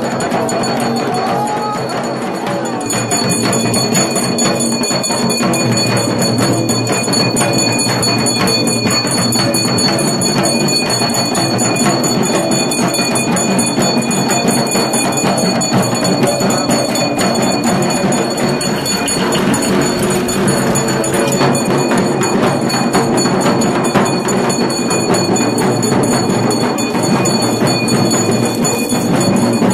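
Temple procession music: dense, fast drumming that keeps going without a break, with steady high ringing held over it.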